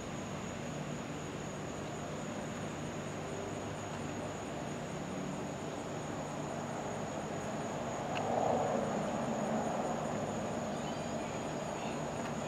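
A steady high-pitched insect chorus over a low background rumble that swells louder about eight seconds in and slowly fades.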